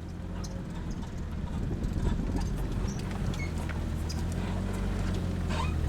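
An engine running steadily with a low, even hum, with scattered light clicks and taps over it.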